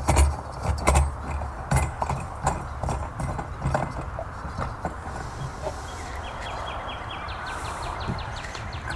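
Irregular knocks and clicks as a stainless steel float ball is handled and screwed onto the metal arm of a brass float valve inside a plastic tank. After about six seconds the knocking stops and a rapid, even high-pitched ticking comes in.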